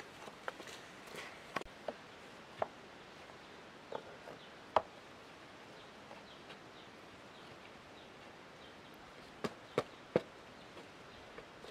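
Scattered sharp knocks of rock against rock as stones are handled and set into a stone embankment, several in the first few seconds, a quiet stretch, then three louder knocks in quick succession near the end.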